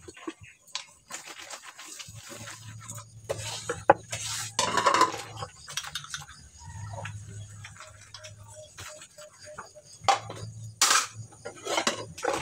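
Dishes being washed by hand: plates and bowls clinking and knocking against each other as they are scrubbed and stacked, in irregular clatters.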